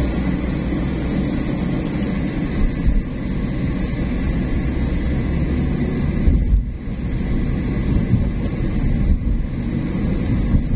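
Steady low rumble of a car driving on city roads, with wind noise on the microphone. There are brief louder bumps about three seconds in and again just past the middle.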